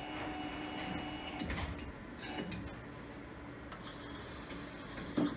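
UV flatbed printer running with a steady hum and whine that cuts off about a second in, then a few scattered clicks and ticks as its control-panel buttons are pressed.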